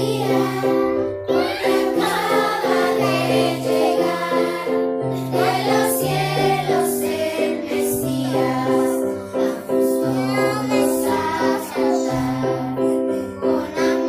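A group of children singing a song together, accompanied by an electronic keyboard playing held chords over a bass line that changes about once a second.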